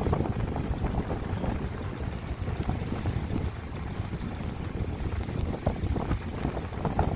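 Gusty wind at the leading edge of a thunderstorm's shelf cloud, the outflow gust front, buffeting the microphone: a low rushing noise that swells and eases unevenly.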